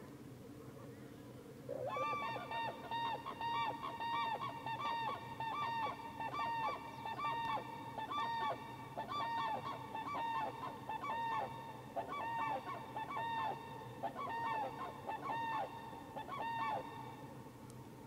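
A pair of common cranes giving their unison call: a rapid run of loud, trumpeting notes that starts about two seconds in and goes on for some fifteen seconds before stopping shortly before the end.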